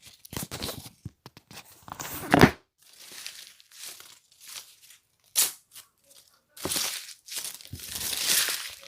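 Irregular bursts of crinkling and tearing noise, with a couple of sharper, louder crackles.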